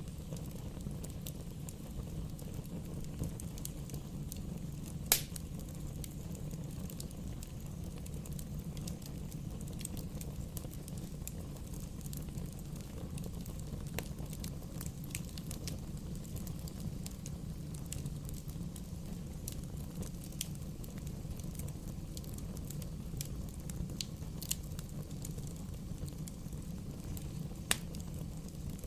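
Wood bonfire burning: a steady low rumble with scattered crackles, and a sharp pop about five seconds in and another near the end.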